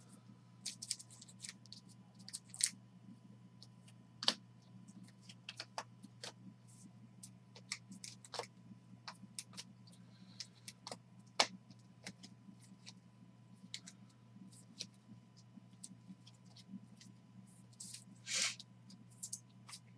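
Faint clicks, taps and brief rustles of baseball cards and plastic card sleeves being handled, stacked and sorted by hand, over a steady low hum.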